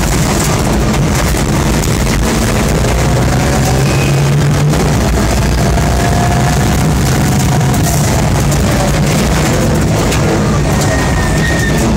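Mitsubishi Lancer Evolution rally car's turbocharged four-cylinder engine running hard on a gravel stage, heard inside the stripped cabin, with dense tyre and gravel noise and stones clicking against the body. The engine pitch rises and falls a little near the middle.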